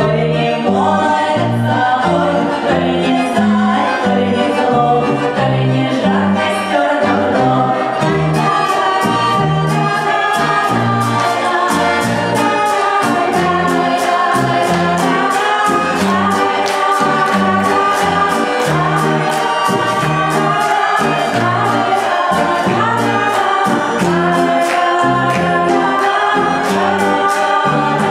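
Live performance of a song: women's voices singing over acoustic guitar and plucked double bass. From about eight seconds in, a sharp, even clicking of several strokes a second keeps the beat.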